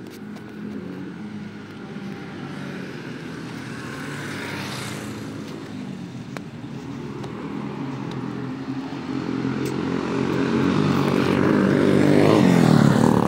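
A motor vehicle's engine getting steadily louder as it approaches along the street, loudest and passing close by near the end.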